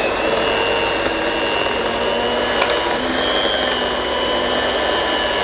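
Vorwerk electric carpet brush for working in dry-cleaning powder, its motor and rotating brushes running with a steady high whine while it is pushed over carpet.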